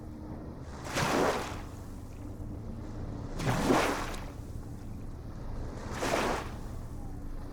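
Ocean waves washing in: three short surges of surf about two and a half seconds apart, over a steady low rumble.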